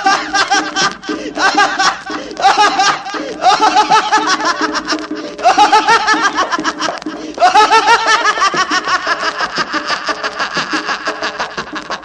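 A man laughing in quick, rhythmic runs as a musical performance over an instrumental backing, from an old comic laughing-song record. Each run of laughter starts every second or two, and the laughing fades off toward the end.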